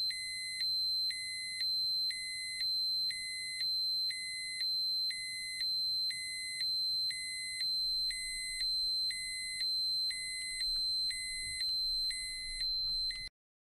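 Electronic alarm-like beeping: a lower beep pulsing about twice a second over a steady high-pitched tone, cutting off suddenly near the end.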